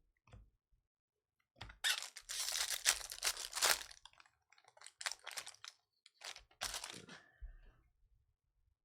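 Wrapper of a 2020 Bowman Baseball Jumbo trading-card pack being torn open and crinkled by hand. There is one long stretch of tearing and crinkling about two seconds in, then two shorter bursts.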